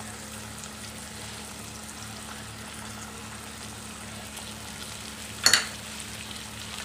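Oil and spices sizzling steadily in a non-stick wok with red sauces just poured in. About five and a half seconds in there is a single short, sharp knock.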